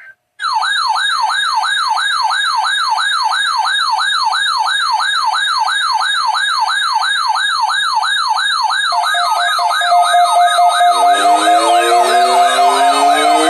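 Weather alert radio sounding its siren alarm: a fast warbling wail, about three rising-and-falling sweeps a second, set off by a weather radio alarm test. About nine seconds in a steady tone joins it, and near the end more rising and falling alarm tones pile on.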